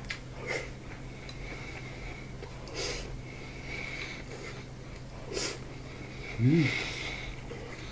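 A person eating fried chicken and rice with chopsticks: chewing and breathing through the nose, with a few short clicks, and a brief hummed "mm" about six and a half seconds in.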